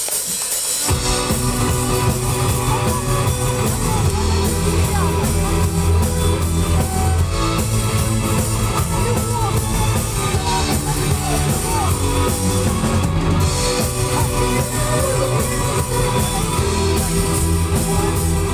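Live rock band playing an instrumental intro with guitar, bass and drums; the bass and drums come in about a second in and then carry a steady beat under the melody.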